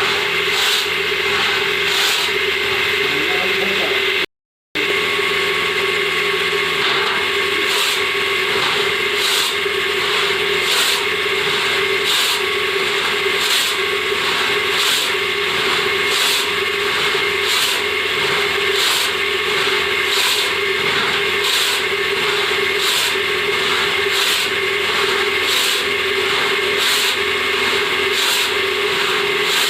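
Hand saw cutting through wood in steady back-and-forth strokes, about one and a half strokes a second, over a constant hum. The sound drops out briefly about four seconds in.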